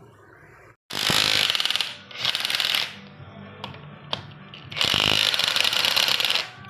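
A power tool with a rapid hammering action runs in two loud bursts, the first about two seconds long and the second about a second and a half.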